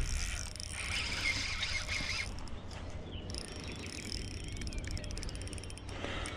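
Spinning reel working under load while a hooked wels catfish is fought on light spinning tackle. From about two seconds in, the reel gives a fine, rapid ticking.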